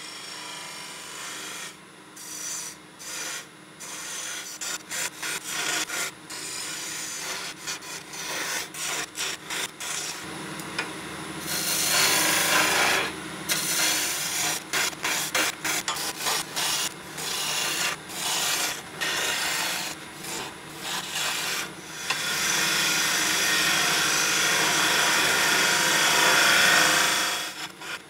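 Wood lathe spinning a spindle blank as a turning tool cuts into it, the shavings hissing off in many short strokes. A longer unbroken cut comes around the middle, and another long one near the end.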